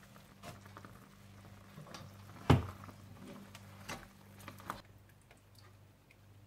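A few light knocks and clicks of kitchen utensils against a cooking pot, with one louder knock about two and a half seconds in, over a low steady hum.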